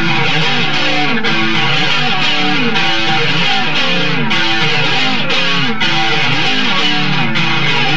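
Electric guitar played solo: a steady stream of single notes with frequent slides up and down between them.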